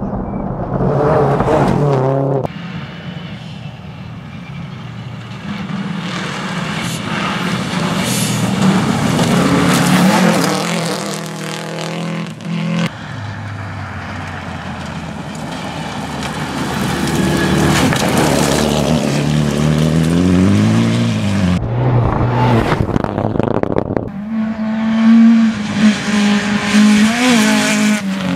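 Gravel rally cars at speed, their engines revving up and down through gear changes as they pass, in several short shots joined by sudden cuts.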